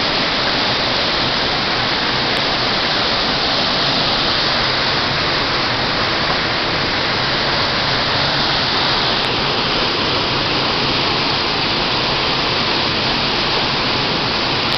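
Waterfall rushing steadily: a loud, even wash of falling water that doesn't change.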